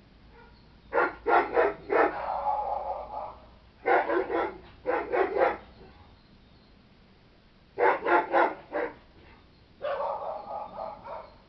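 A dog barking in quick runs of three or four barks, some runs followed by a longer drawn-out bark.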